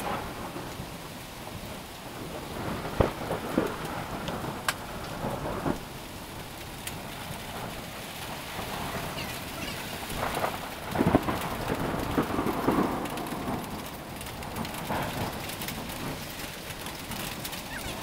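Hailstorm: a steady downpour of rain and hail on surfaces, with sharp single hailstone strikes now and then and louder surges about three seconds in and again around the middle.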